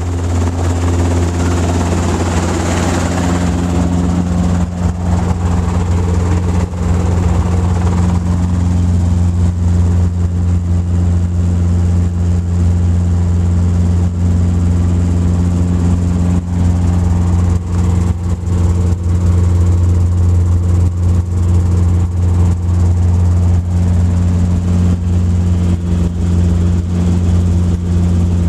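Robinson R22 helicopter's piston engine and rotor running at takeoff power, heard from inside the cabin as it lifts off and picks up airspeed. A steady deep drone with a constant hum, and a rushing hiss that fades over the first few seconds.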